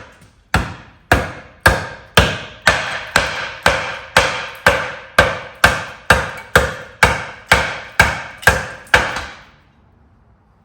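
Hammer striking metal in a steady run of about eighteen blows, roughly two a second, each one ringing briefly; the blows stop about a second before the end.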